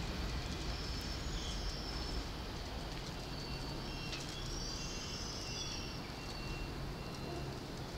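Eurasian tree sparrows chirping: scattered short, high chirps and twitters, busiest about halfway through, over a steady low rumble.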